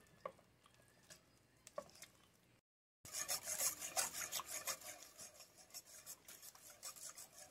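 A wire whisk scraping rapidly round a stainless steel saucepan, beating a thin milk mixture on the stove; the fast rasping strokes start about three seconds in, after a few faint scrapes of a silicone spatula in thick paste.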